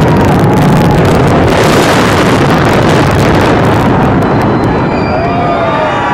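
Demolition charges firing in a rapid crackling series as the New Haven Coliseum is imploded, then the building's collapse as a loud, dense rumble that fades after about four seconds. Spectators' shouts rise near the end.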